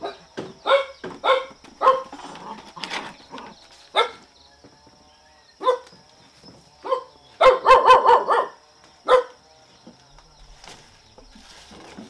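A dog barking in short single barks every second or so, breaking into a quick run of several barks about two-thirds of the way through.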